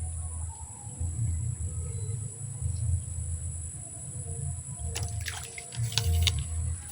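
Steady high drone of insects with an uneven low rumble, and a cluster of sharp clicks and splashy rustles in the last two seconds, which is likely line and fish being handled at the water.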